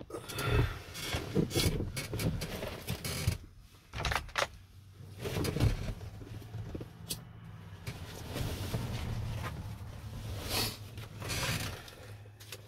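Irregular clicks, knocks and rustling from handling things in a car cabin, over a steady low hum.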